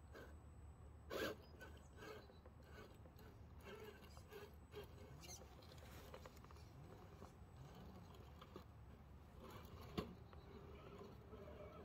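Faint rustling and scraping, with a short louder scrape about a second in and a sharp click about ten seconds in.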